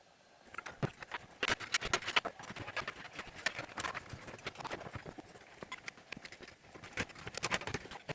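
A rapid, irregular run of clicks and knocks, starting about half a second in, as computer parts are handled and fitted together.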